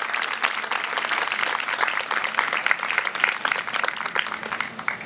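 Audience applauding, many hands clapping at once, dying away just before the end.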